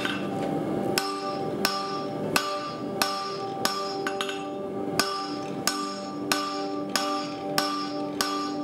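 Hand hammer striking a red-hot steel bar on an anvil at a steady pace, about three blows every two seconds, starting about a second in: the bar's end is being drawn flat. Background music plays under the blows.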